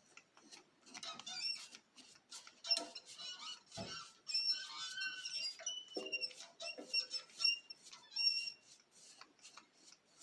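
A cloth squeaking and rubbing on a freshly sealed wood surface while lacquer sanding sealer is wiped on: many short high squeaks in quick irregular runs, with soft scuffs and small clicks.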